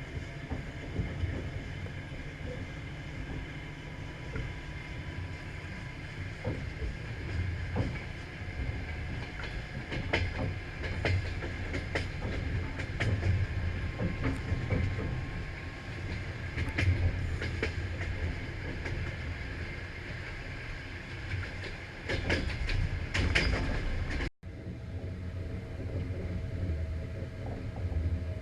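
Passenger train running on the rails: a steady low rumble with irregular clicks of the wheels and faint steady high tones, the 'singing rails'. About 24 seconds in, the sound cuts off abruptly and gives way to a different, steadier hum.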